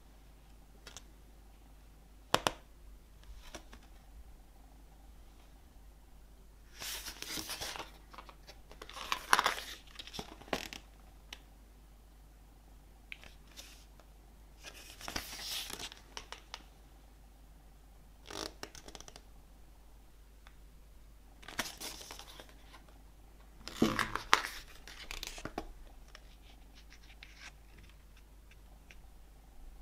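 Album packaging handled by hand: short bursts of paper or plastic crinkling and tearing, separated by pauses, with a sharp tap a couple of seconds in.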